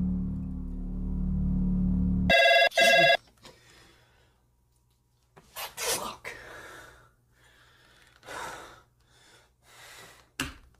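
A low sustained drone of film score music cuts off abruptly, followed by two short, loud telephone rings signalling an incoming call. Then come several soft breaths and small movement sounds.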